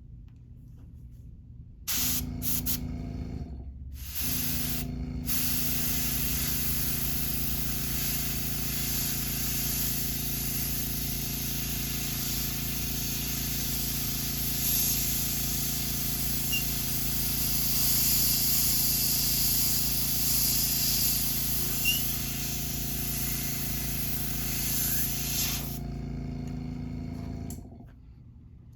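Airbrush spraying paint: a few short bursts of hiss, then one long steady spray, over a steady hum from the air compressor. The hiss stops shortly before the end, and the hum cuts out about a second and a half later.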